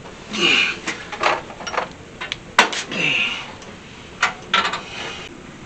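An open-end wrench working the brake-line fittings at a master cylinder, with a sharp metal click about halfway through and a quick run of clinks a little after four seconds. Short strained grunts of effort come near the start and about three seconds in.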